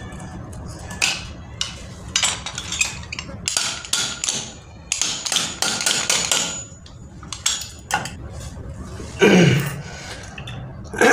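Repeated sharp metal knocks and clinks as the end cover of a monoblock water-pump motor is worked down over the new bearing onto the motor body, a tight fit. Two heavier knocks come near the end as the motor is shifted.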